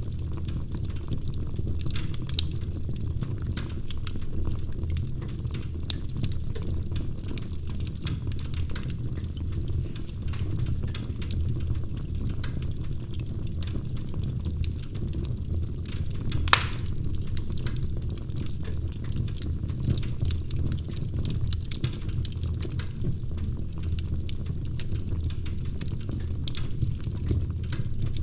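Wood fire burning in a fireplace: frequent small crackles over a steady low rumble, with one louder pop about halfway through.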